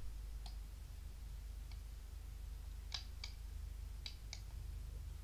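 A few faint, sharp clicks, two of them in quick pairs about a quarter second apart, over a steady low hum.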